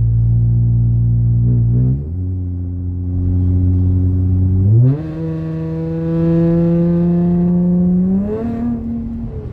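Dodge Challenger's exhaust through MagnaFlow Magnapack mufflers while driving: a steady drone, a drop in engine speed about two seconds in, then a quick rise near five seconds and a slow climb as the car pulls.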